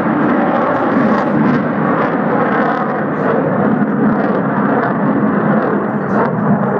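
Jet engine noise from a Sukhoi jet passing overhead: a loud, steady roar with a ragged edge that eases slightly toward the end.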